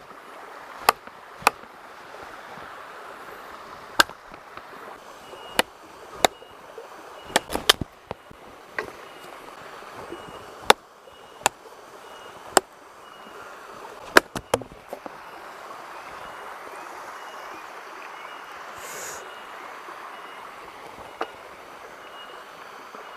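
Wood being chopped by hand: irregular sharp knocks of a blade striking very hard wood, about fifteen of them, stopping about fifteen seconds in with one more near the end. Under them the steady rush of a river and waterfall.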